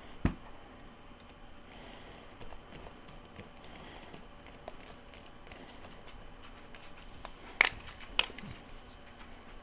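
Hands turning over a food chopper's plastic motor housing with its electric motor mounted, giving quiet rubbing and handling noise, a soft knock just after the start and two sharp plastic clicks about half a second apart near the end.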